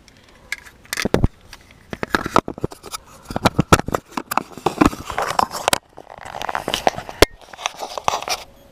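Close handling noise of a GoPro camera being fitted into its plastic waterproof housing: a run of sharp clicks and knocks, with a stretch of scraping against the microphone near the end.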